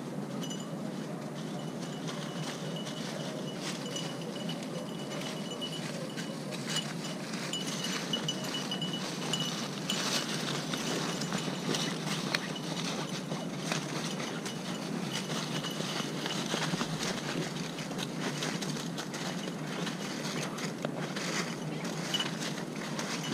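Outdoor ambience in bare woods: a steady low rush, a thin high tone that comes and goes during the first half and again near the end, and scattered short crackles, like dry leaves and twigs, through the second half.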